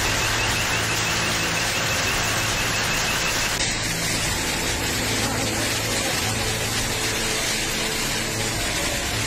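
Heavy rain and floodwater rushing along a flooded street, a steady noisy wash with the engines of cars driving through the water. The sound changes abruptly a little over three seconds in.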